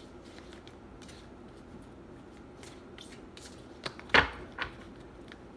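Oracle cards and their deck box handled at a table: faint scattered taps and rustles, then a click, a loud brief rustling scrape and a smaller one about four seconds in.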